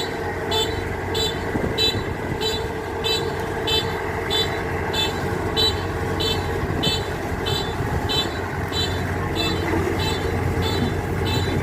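Kubota DC-93 combine harvester's diesel engine running steadily, with a short high-pitched beep repeating about twice a second throughout.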